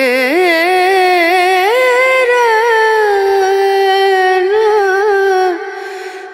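Background music: a single singing voice holding long, wavering, sliding notes. The phrase dies away about five and a half seconds in, and a new one starts at the very end.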